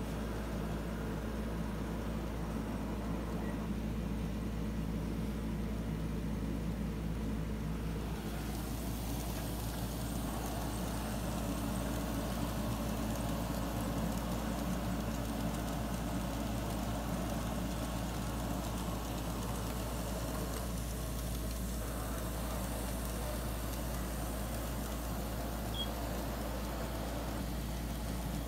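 A steady low mechanical hum with a few steady low tones, joined by a brighter hiss from about eight seconds in.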